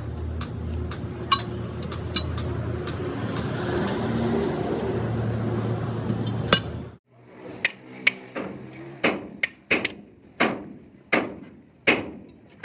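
A motor runs with a steady low hum for about seven seconds and then cuts off abruptly. A run of hammer blows on steel follows, roughly two a second, each ringing briefly.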